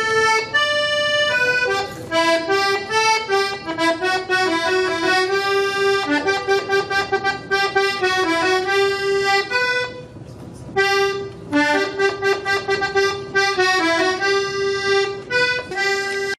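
Hohner diatonic button accordion playing a tune, a melody of quick notes over a held lower note, pausing briefly about ten seconds in.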